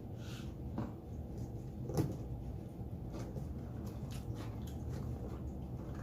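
Quiet eating and food-handling noises: scattered small clicks and light knocks, one sharper knock about two seconds in, over a low steady hum.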